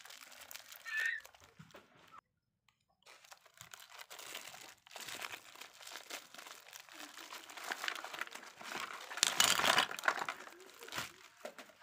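Plastic bubble wrap crinkling and crackling as it is pulled off small packaged items by hand, loudest near the end. The sound drops out completely for under a second about two seconds in.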